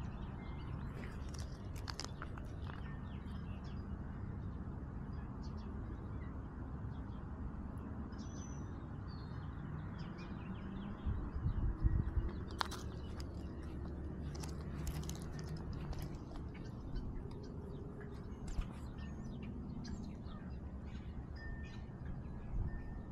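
Birds chirping faintly over a steady low rumble, with scattered short clicks, a few of them louder about halfway through.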